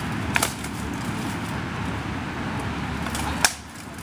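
Two sharp clacks of sparring weapons striking, one just after the start and a louder one near the end, over a steady low background rumble.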